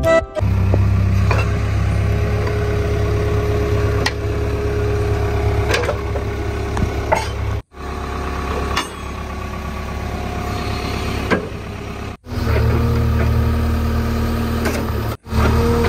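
Dubbed vehicle engine sound effect idling with a low, steady rumble, broken by three short silent cuts where the effect is spliced.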